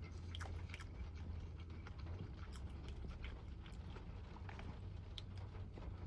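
Faint eating sounds: chewing and scattered small clicks and taps of a utensil and takeout container, over a steady low hum.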